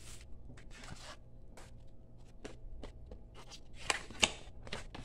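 Plastic bag and card packaging rustling and scraping as it is handled, in short scattered bursts, with two sharper, louder crackles about four seconds in.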